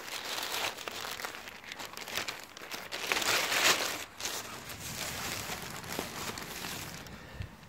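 Empty plastic drinks bottles crinkling and crackling as they are handled and stood up on a ledge, loudest about three and a half seconds in.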